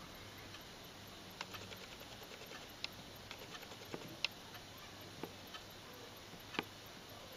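Faint handling noise from a printed paper card being held and turned over a gift box: scattered light clicks and ticks, about half a dozen, the sharpest a little over four seconds in, over a low steady hum.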